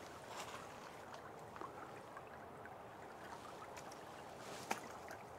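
Faint steady rush of flowing river water, with scattered small ticks and one sharper click about four and a half seconds in.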